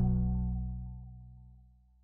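Music fading out, dying away within about two seconds.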